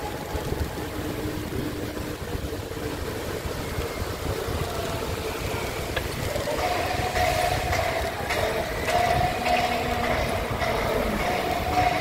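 Steady low rumble of traffic and wind noise on a moving microphone. Faint held tones change pitch in steps over it and grow a little louder in the second half.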